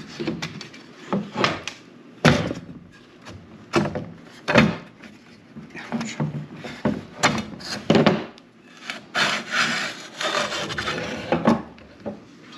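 Wooden frame strips being pulled apart and handled on a workbench: irregular knocks and clacks of wood against wood, with a stretch of rubbing and scraping near the end.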